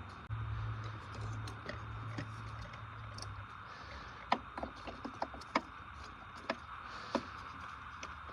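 A series of sharp clicks and knocks, about seven over three seconds in the second half, after a steady low hum that stops about three and a half seconds in.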